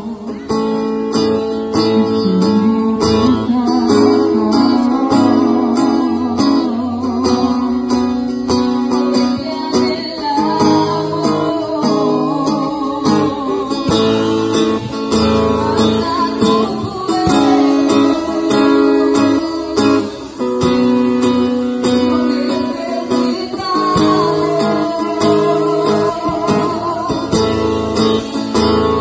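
Live amplified worship song: acoustic guitar strummed steadily under singing into microphones, the voices holding long notes.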